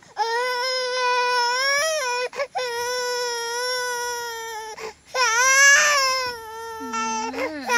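A baby crying in three long wails, each held on a steady pitch with a short catch of breath between them; a lower voice sounds under the cry near the end.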